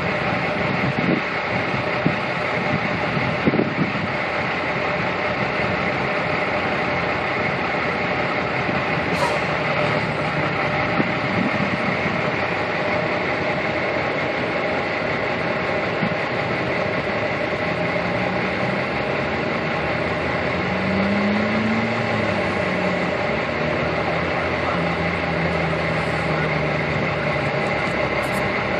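Steady road-traffic noise of vehicles driving through an intersection, with engines running. A low engine hum rises and falls in the second half.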